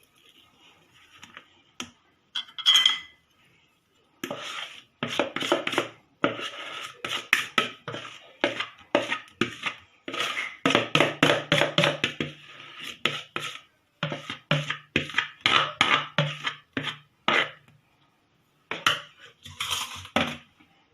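A utensil scraping and clinking against a mixing bowl in quick repeated strokes, several a second, as thick cake batter is scraped out into the pan.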